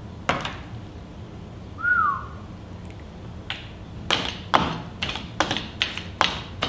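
A paint roller being rolled back and forth in a plastic paint tray to load it: a string of sharp clacking strokes, two or three a second, from about three and a half seconds in. Before that, a single short squeak that rises then falls in pitch.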